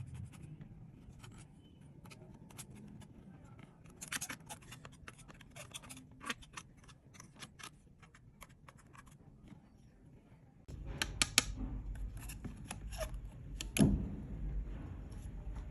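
Clear slime being pressed and stretched by hand, giving a run of sharp little clicks and pops. About eleven seconds in it grows louder over a low rumble, with one loud pop near the end.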